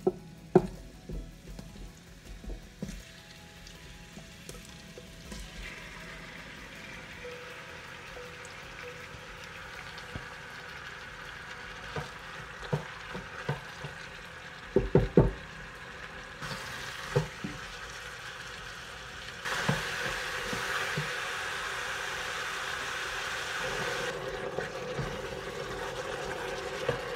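Diced pork loin sizzling as it browns in the Crockpot Express multicooker's inner pot on its brown/sauté setting. The sizzle builds and turns louder about two-thirds of the way through. A silicone spatula knocks against the pot now and then as the meat is stirred, in a quick cluster around the middle.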